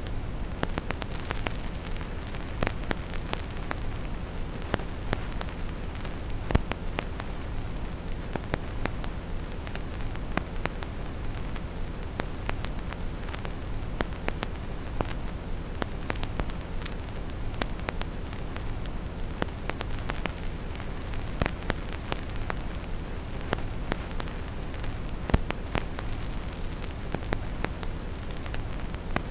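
Vinyl record surface crackle, irregular clicks and pops as from a needle in the groove, over a steady deep brown-noise hiss.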